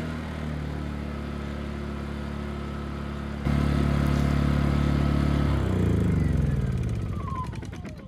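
Honda EU2000i inverter generator's small single-cylinder four-stroke engine running steadily, louder from about three and a half seconds in. About two-thirds of the way through it is shut off, and its note falls away as it spins down to a stop.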